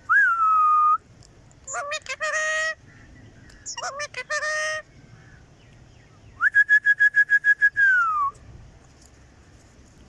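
Whistling in separate phrases: a clear whistle that rises and then falls, two short call-like phrases, then a fast pulsing whistle that ends in a falling glide.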